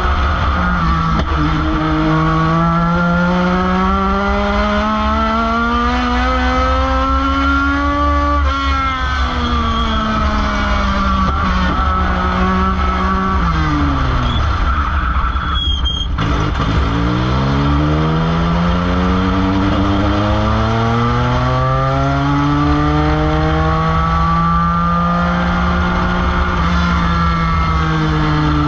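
Race car engine heard from inside the cockpit on a dirt oval. Its pitch climbs for several seconds under acceleration, drops steeply as the driver lifts for a turn about halfway through, then builds slowly again, over a constant low rumble.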